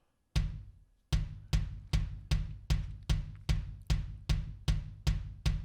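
Soloed kick drum track playing back, the track Slate Trigger is replacing with drum samples: evenly spaced kick hits, a little over two a second, each a sharp click with a low boom. The first hit comes about a third of a second in, followed by a slightly longer gap before the steady pattern.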